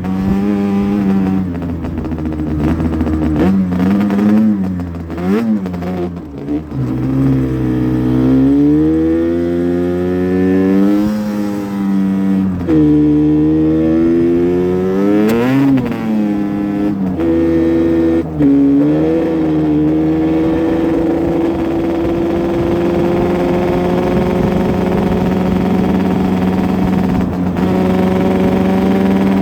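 Yamaha Banshee 350's twin-cylinder two-stroke engine being ridden, its pitch rising and falling repeatedly with the throttle for about the first twenty seconds, then holding a steadier, slowly climbing pitch.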